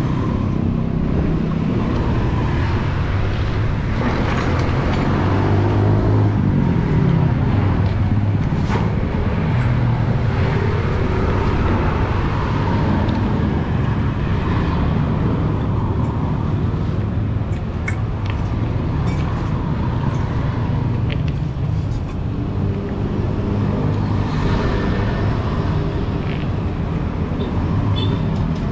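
Steady road traffic passing close by, with an engine rising and falling in pitch about six seconds in.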